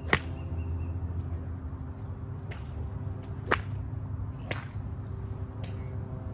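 Sharp crack of a golf club striking a ball just after the start, followed by four fainter club-on-ball strikes about a second apart, over a steady low hum.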